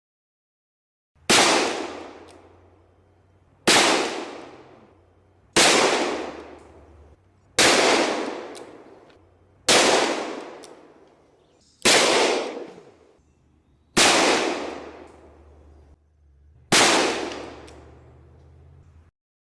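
Eight single gunshots from a light firearm, fired about two seconds apart, each with a long echoing tail.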